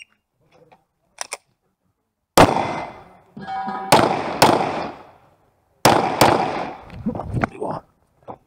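Five pistol shots: a single shot, then a quick pair, then another quick pair. Each crack is followed by an echo that fades away over about a second.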